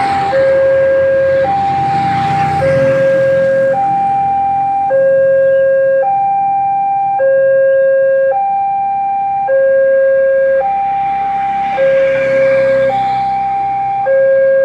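Railway level-crossing warning alarm sounding with the barriers down, the sign that a train is coming. Its steady two-tone electronic call alternates between a low and a higher tone, each held about a second and a quarter. A rushing noise swells over it near the start and again about twelve seconds in.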